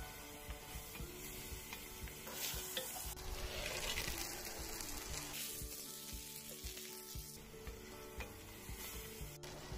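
Chopped meat and onions sizzling in a cast iron pot over a wood fire, stirred with a wooden spatula that knocks and scrapes against the pot.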